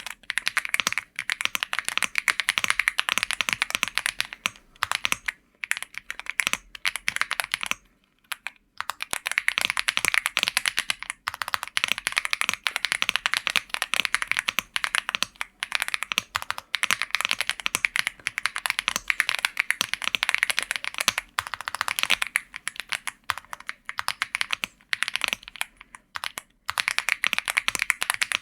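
Fast typing on a computer keyboard, recorded through a Fifine Ampligame A8 microphone: dense runs of keystroke clicks with brief pauses, the longest about eight seconds in.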